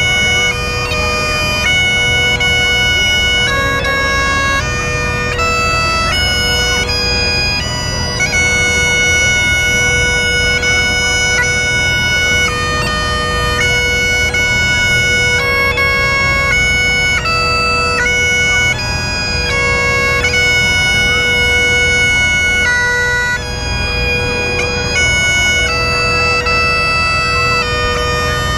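Bagpipes playing a continuous melody over their steady drone, the notes changing every second or so.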